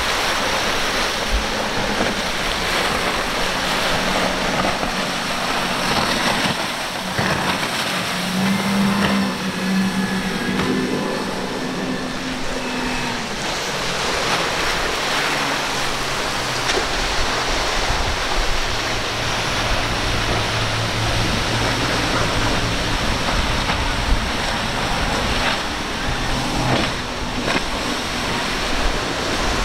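Rough surf and boat spray hissing, with the twin outboard engines of centre-console boats running underneath, their drone rising and falling as the boats power through the waves.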